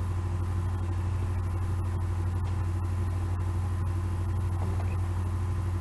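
A steady low hum with a faint high-pitched whine above it, unchanging throughout.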